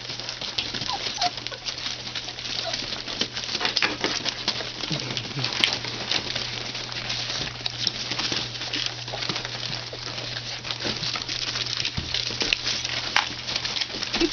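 Newspaper crackling and rustling under a litter of nearly four-week-old German Shepherd puppies scrabbling about and nursing, a dense patter of small clicks, with a few faint puppy squeaks in the first few seconds.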